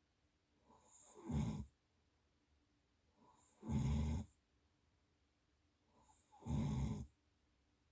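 A sleeping person snoring: three short snores about two and a half seconds apart, each with a faint lead-in.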